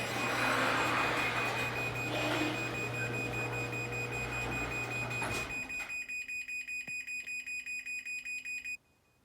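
Craftsman garage door opener motor running as the door closes, stopping about five and a half seconds in. Rapid, even beeping follows for about three seconds, then cuts off suddenly.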